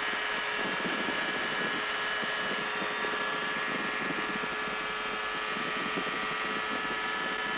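FlightStar ultralight's engine and propeller running at takeoff power on a touch-and-go from grass: a steady drone with several held tones, with wind rushing past.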